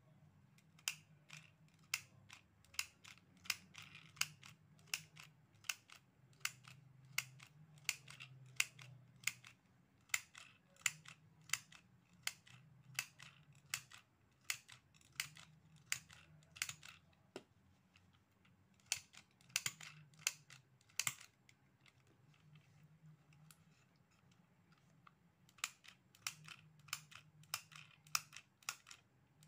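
Handheld mini sewing machine clicking with each squeeze of its stapler-style handle as it stitches through cloth, about two clicks a second in runs with a couple of short pauses.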